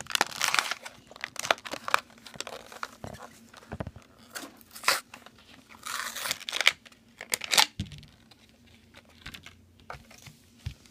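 Toy packaging being torn open by hand: bursts of tearing and crinkling with sharp clicks and rustles at irregular moments.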